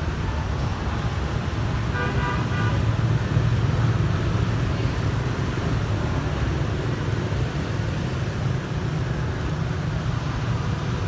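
Steady low rumble of road traffic, with a short pitched sound about two seconds in.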